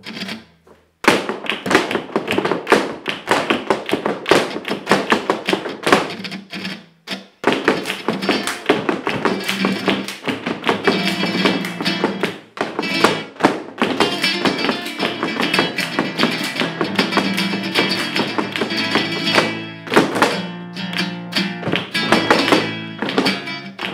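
Flamenco zapateado: heeled dance shoes beating rapid rhythms on a wooden board floor, stopping briefly about a second in and again about seven seconds in. Flamenco guitar strumming plays under the footwork.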